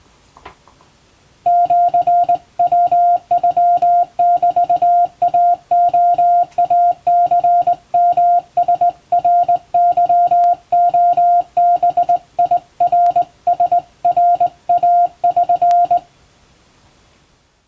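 Japanese (wabun) Morse code sent by hand on a straight key: one steady beep keyed on and off in short and long elements. It starts about a second and a half in and stops a little before the end.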